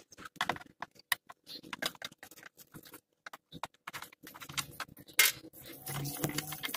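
Irregular small clicks and scratches of a screwdriver being handled and fitted to a screw in the plastic instrument-cluster surround of a Suzuki Mehran dashboard, with one sharper click about five seconds in.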